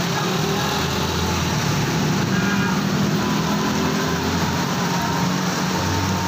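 Heavy rain hissing steadily, with the low, steady hum of a vehicle engine underneath.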